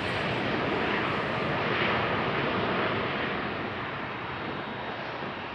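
Jet roar from a Boeing 787-8 Dreamliner's GEnx-1B turbofan engines at takeoff thrust during the takeoff roll. The roar is steady and grows a little quieter about three seconds in as the airliner rolls away.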